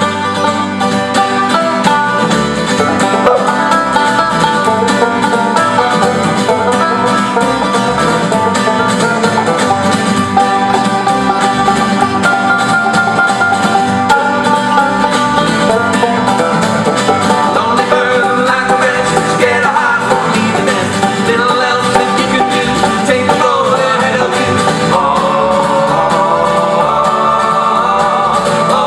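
Live acoustic folk band playing an instrumental break over a steady bass pulse.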